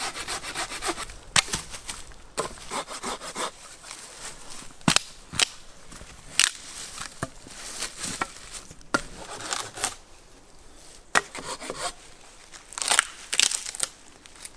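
Dead branches being snapped and broken by hand and underfoot for firewood: a string of sharp, irregular wooden cracks with rustling in between.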